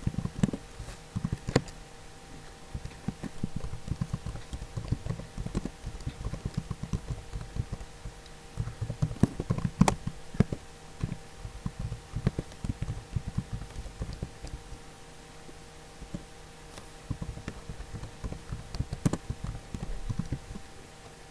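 Typing on a computer keyboard: irregular runs of key taps and clacks with short pauses, over a faint steady electrical hum.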